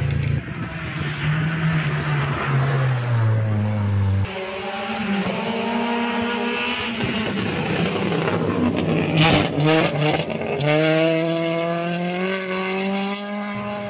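Rally car engines accelerating hard on a wet gravel stage, pitch climbing and dropping through the gears over several short cut-together passes. There is a sharp crack about nine seconds in.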